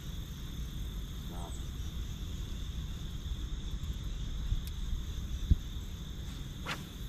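Steady high trilling of insects over a low rumble, with a light knock about four and a half seconds in and a single sharp thump a second later.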